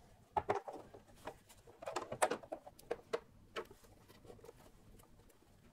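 Light, irregular clicks, taps and scrapes of a screwdriver and a cover panel being handled as the cover is screwed back onto a 3D printer's base, most of them in the first three and a half seconds.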